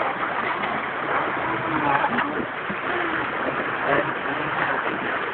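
Motor of a small radio-controlled boat running out on the river, over the steady rush of fast-flowing water.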